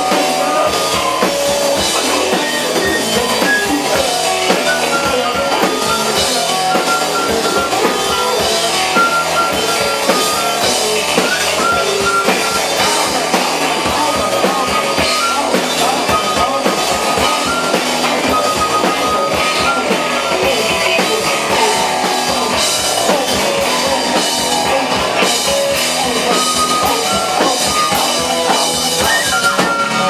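Live rock band playing: a driving drum kit and guitar, with a flute holding long high notes over the beat.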